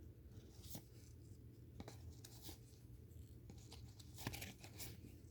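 Faint scrapes and soft flicks of trading cards being slid and handled one after another, a little louder around four seconds in.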